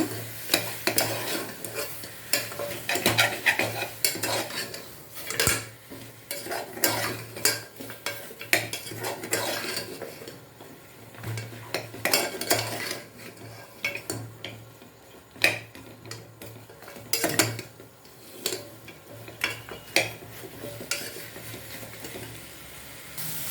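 Mutton bones being stirred into sizzling oil, onion and tomato in a pressure cooker pot, with repeated clinks and scrapes of the stirring utensil against the pot over a light sizzle.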